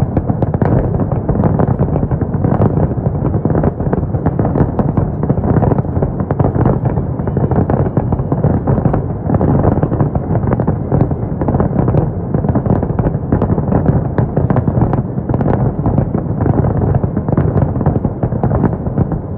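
Large fireworks salute in full flow: a dense, unbroken barrage of shells bursting and booming over one another, many bangs a second with no pause.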